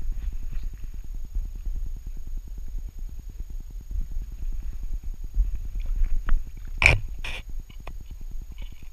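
Saarloos wolfdog panting rapidly as it walks, heard close on its body as an even, low, gurgling rhythm. About seven seconds in, pine branches scrape twice across the dog's back.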